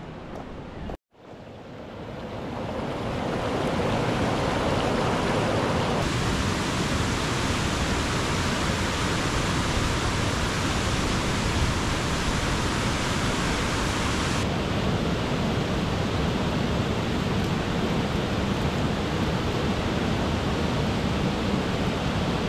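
Steady rushing of running water. It cuts out briefly about a second in, swells up over the next few seconds, then holds, with its tone shifting abruptly twice.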